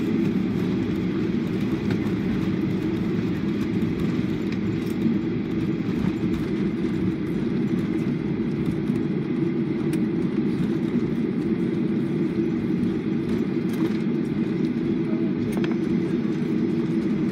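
Steady cabin rumble of a Boeing 737-800 rolling out on the runway after touchdown: its CFM56 turbofans and the rolling airframe heard from inside the passenger cabin, ground spoilers deployed.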